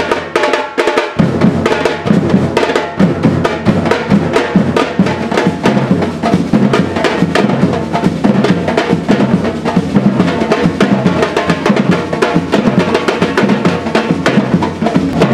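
Batucada-style street percussion group drumming on large bass drums and snare drums in a dense, steady rhythm.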